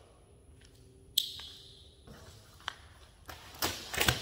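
Steel cabinet panels being handled during unpacking: a sharp metal clank about a second in that rings and fades, then a few light knocks and a louder rustle and clatter near the end.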